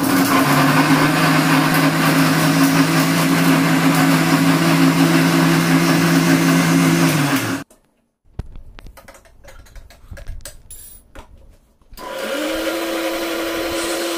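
Electric mixer grinder running steadily, its blades grinding a wet masala of onion, green chilli, coriander, cumin and peppercorns in a steel jar. It runs loudly for about seven and a half seconds, stops, there are a few knocks and clinks as the jar is handled, and then it runs again for about two seconds, kept short so the masala stays coarse.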